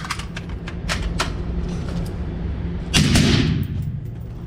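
Several sharp clicks and knocks in the first second or so, then a single loud rifle shot about three seconds in, with a long echoing tail.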